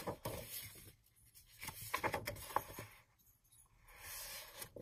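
Paper rustling as sheets of a pad of double-sided printed paper are lifted and turned over, in short crackly bursts at the start, about two seconds in, and near the end.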